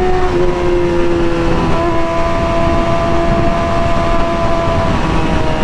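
Kawasaki ZX-6R inline-four with an M4 GP exhaust running at a steady cruise, its pitch stepping down slightly a couple of times, under heavy wind rush.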